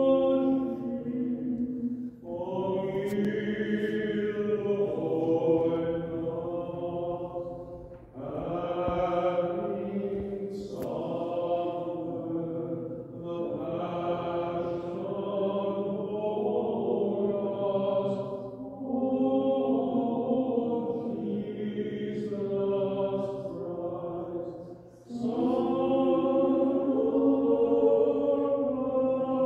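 Orthodox liturgical chant sung unaccompanied, in long sustained phrases with brief pauses for breath about two, eight and twenty-five seconds in.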